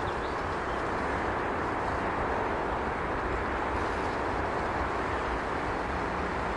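Steady rushing roar of distant road traffic, unchanging throughout, with a low rumble underneath.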